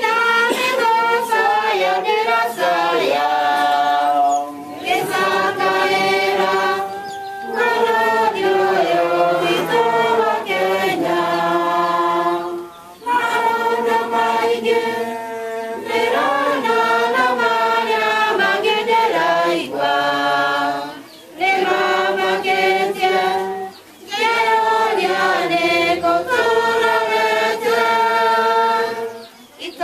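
A group of people singing a hymn together, in sung phrases broken by short pauses.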